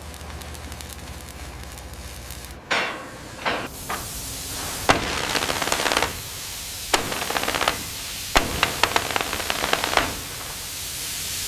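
Metalworking on steel: a series of sharp hammer strikes with a clatter of quick blows near the end, over a steady hiss, after a low hum in the first couple of seconds.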